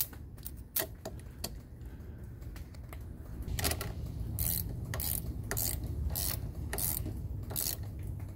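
Small hand ratchet clicking on its back-swings while tightening the bolt of a battery terminal clamp onto the post. There are scattered clicks at first, then a steady run of click bursts about every two-thirds of a second from about halfway in.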